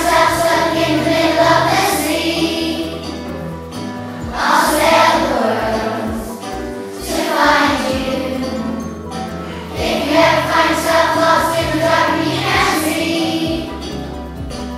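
A large group of children singing a song together, many voices in unison, in phrases a few seconds long.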